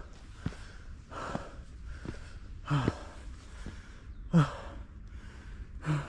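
A hiker breathing hard while climbing uphill: three loud, half-voiced exhalations about a second and a half apart, with quieter breaths between them. A few sharp clicks are also heard.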